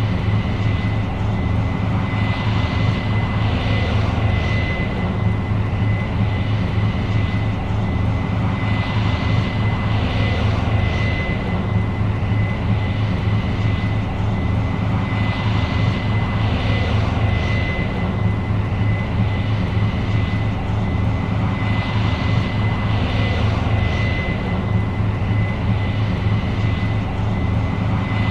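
New Holland CR 7.90 combine running steadily under load while harvesting corn: a continuous low engine drone with a constant high whine over it.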